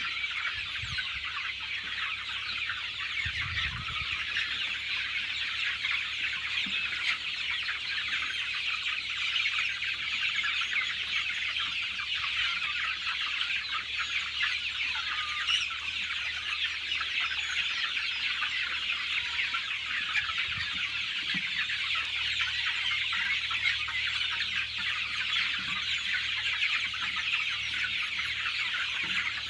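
A large flock of desi (native) chickens clucking and calling all at once, a dense steady chatter of many birds.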